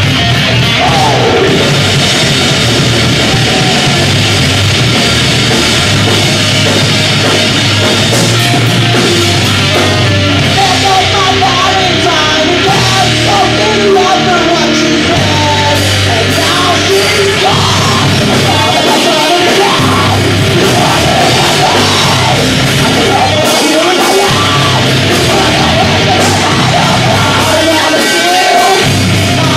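Live heavy metal band playing loudly: distorted electric guitars, bass guitar and drum kit.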